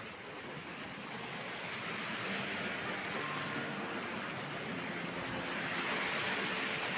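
Rocky mountain stream rushing over boulders, a steady rushing noise that grows louder over the first few seconds.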